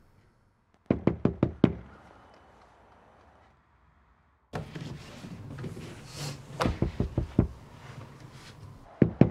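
Knocking on a house's front door: a quick run of about five knocks about a second in, a second run of about five knocks past the middle, and two more just before the end.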